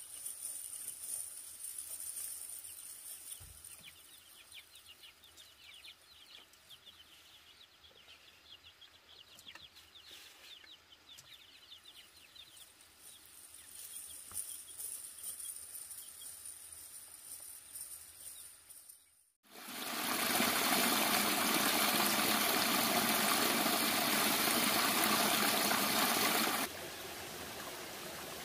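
Shallow stream water flowing, the loudest sound: a steady rush starts suddenly about two-thirds of the way in, then drops to a softer steady flow near the end. Before that there is faint outdoor ambience with a high insect drone and a few scattered bird chirps.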